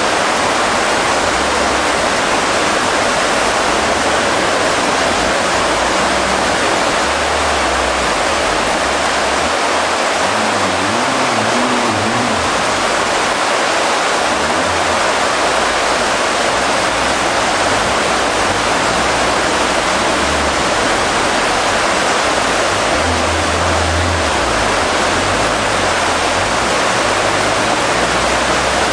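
Fast river rushing over rapids: a loud, steady, unbroken rush of water.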